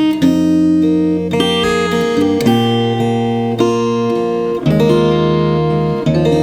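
Batiksoul Bird and Roses all-rosewood acoustic guitar played fingerstyle: ringing bass notes under a plucked melody, with new chords struck every second or two.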